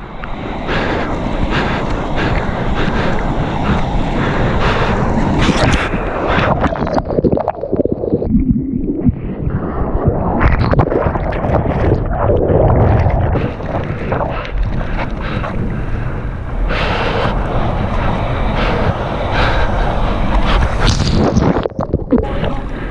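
Ocean surf splashing and rushing against a GoPro held at the water surface, with wind buffeting the microphone. The sound goes muffled for about two seconds around eight seconds in as the camera dips underwater, and again briefly near the end.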